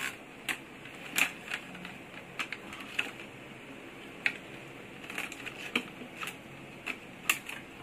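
Irregular light clicks and taps from handling plastic electrical junction boxes and pushing wires through them.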